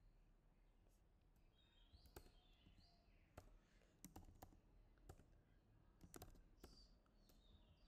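Faint typing on a computer keyboard: a scattering of separate key clicks, starting about two seconds in and stopping shortly before the end, over quiet room noise.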